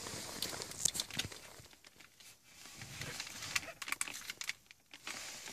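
Plastic housing of an Audi MMI control panel being handled and pried apart at its clips with wooden sticks: scattered small plastic clicks and rustling, with a quieter spell in the middle.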